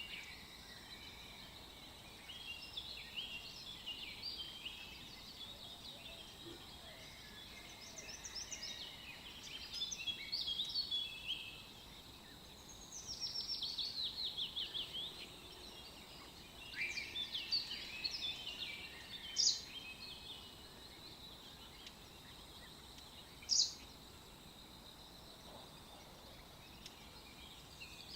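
Small birds singing and chirping over a faint steady hiss, with varied quick chirps and a rapid trill of falling notes about halfway through.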